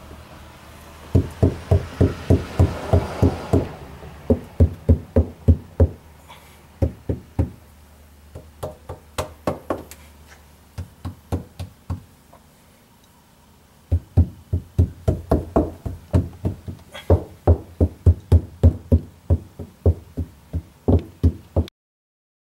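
Knuckles knocking on a Corvette's cabin floor covered in foil-faced sound deadener: a knock check of how well the freshly installed first-stage deadener damps the panel. Quick runs of knocks at the start and again in the second half, with slower, scattered knocks and a short pause around the middle.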